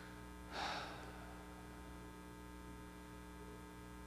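Steady electrical mains hum in the sound system, with one short breath from the preacher about half a second in.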